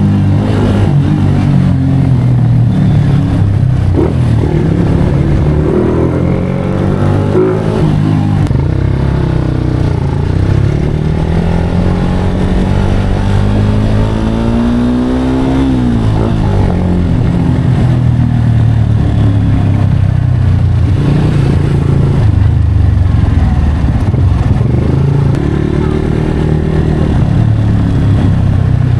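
Yamaha Sniper 150 V2 single-cylinder four-stroke engine in super stock tune with an open throttle body, revving in repeated blips. About halfway through the pitch climbs for several seconds, then drops sharply when the throttle is released.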